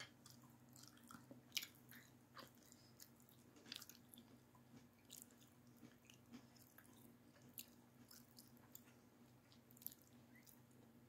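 Near silence with a person faintly chewing a mouthful of food, and a few soft, scattered clicks.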